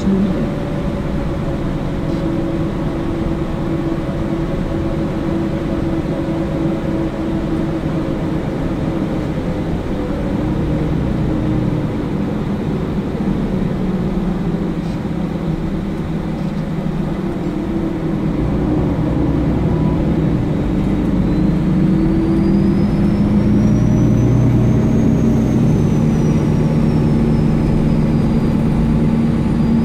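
MAN Lion's City Ü (A20) bus heard from inside the cabin at the rear while under way: engine and drive noise, with the engine's pitch shifting up and down. It grows louder in the second half as the bus pulls harder, and a thin high whine rises and falls near the end.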